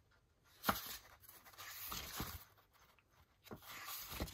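A booklet's paper pages being handled and turned, with soft rustling and one sharp knock a little under a second in.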